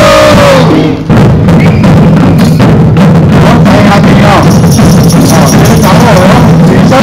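Taiko-style barrel drums beaten hard and fast with sticks by a drum ensemble, a dense, loud rhythm of strikes with a brief break about a second in.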